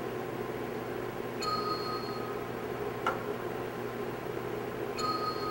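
A single sharp tap about 3 s in as a plastic-tipped impact hammer strikes a 90 mm milling cutter in the machine spindle. A short steady computer beep sounds about 1.5 s in and again about 5 s in, the measuring software acknowledging each accepted hit, over a steady low hum.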